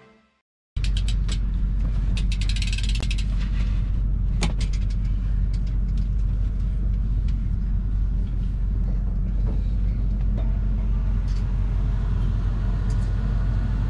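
Steady low rumble of an idling van engine, starting about a second in, with light clicks and rattles of bicycle parts being handled in the first few seconds.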